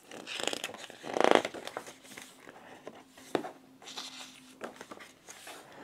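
Pages of a glossy hardcover mediabook booklet being turned by hand: a soft paper swish, then a louder one about a second in, followed by a few light taps and paper rustles.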